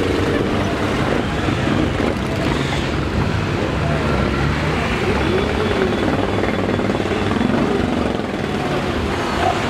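A dense stream of motorcycles riding past at close range, many engines running at once, with single bikes rising and falling in pitch as they go by.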